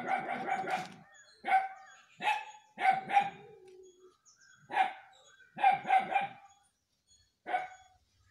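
A dog barking about ten times in short, sharp, irregular bursts.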